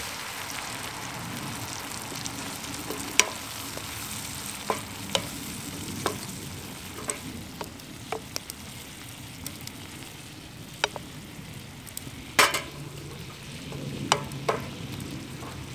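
Bacon, mushrooms and cream sizzling and simmering in a frying pan over a small wood-fired stove, a steady hiss with scattered short taps as a wooden spatula stirs and scrapes the pan. A louder clatter comes about twelve seconds in.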